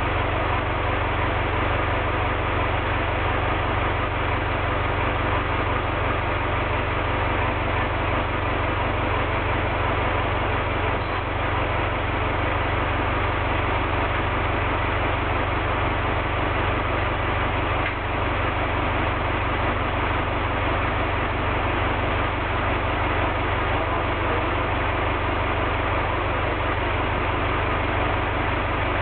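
Diesel engine idling steadily, an even rapid chug that holds the same speed throughout.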